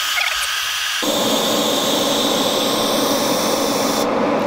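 A steady rushing noise that turns abruptly louder and fuller about a second in and loses its high hiss near the end.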